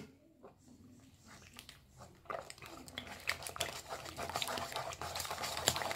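Wire whisk beating eggs into a thick batter in a stainless steel bowl: wet slapping with quick clicks of the tines against the metal, faint at first and growing louder from about two seconds in.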